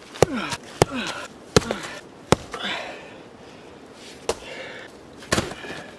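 Repeated blows of a heavy hand tool striking volcanic rock: about four strikes in quick succession, a pause, then two more, each followed by a short ring that drops in pitch.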